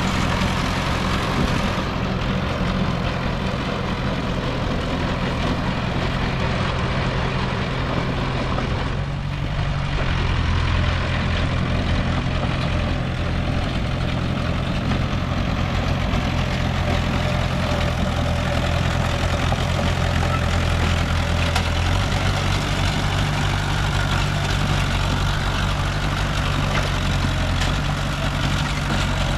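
Heavy diesel engine of earthmoving machinery running steadily, its note shifting a couple of times as the load or throttle changes, with a brief dip about nine seconds in.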